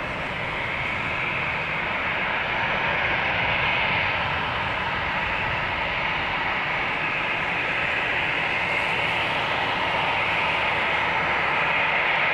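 Boeing 747-400's four jet engines at takeoff thrust during the takeoff roll, heard from behind as a steady rushing jet noise that grows slowly louder.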